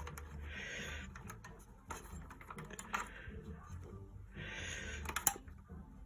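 Scattered clicks and knocks of a scooter seat attachment being fitted and secured, with a sharp double click near the end and two short rustling hisses in between.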